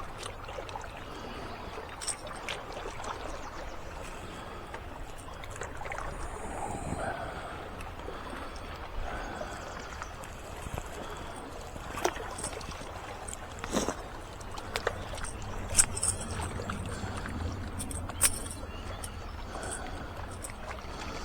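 Water lapping and splashing, with scattered sharp clicks and knocks, the loudest about halfway through and again near the end.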